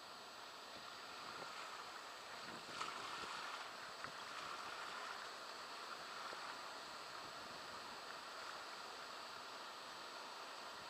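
Steady rush of river water with a faint knock a little under three seconds in.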